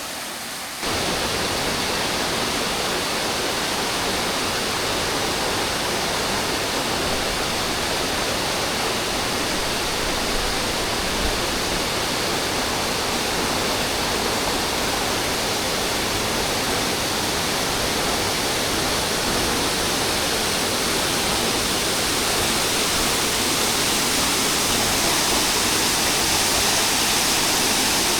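Kithal Ella waterfall: falling water making a dense, steady rushing noise, which steps up in level about a second in and grows a little louder near the end.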